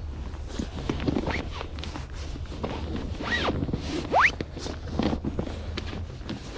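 Hands rubbing, pressing and sliding on an inflated fabric pad, with scratchy rustling and a few short rising squeaks; the loudest squeak comes about four seconds in.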